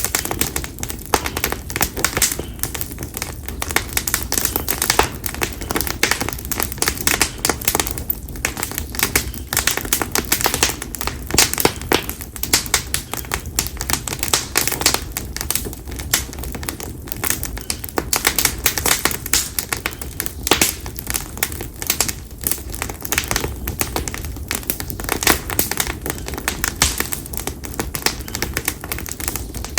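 Konara oak firewood crackling in an open fire: a dense, irregular stream of sharp cracks and pops.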